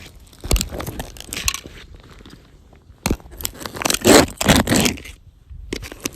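Safety-boot sole stomping on and grinding a small toy car against asphalt: irregular crunching and scraping. A sharp impact comes about three seconds in, and the loudest grinding follows just after it.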